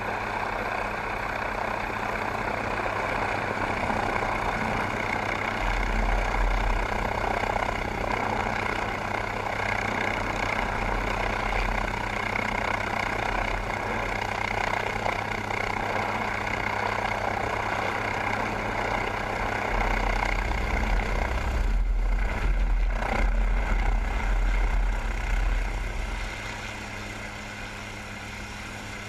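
MQ-8B Fire Scout unmanned helicopter's turbine engine and rotor running steadily. The level drops about 26 seconds in.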